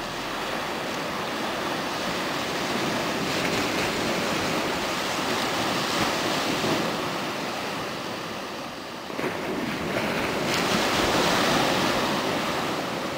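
Small ocean waves breaking and washing up a sandy beach: a steady surf wash that swells and eases, dips briefly, then surges louder again near the end as a wave breaks at the shoreline.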